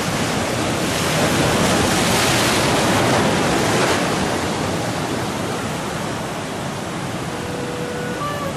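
Ocean swell washing over rocks: a loud rush of surf that builds over the first second, peaks, then slowly subsides.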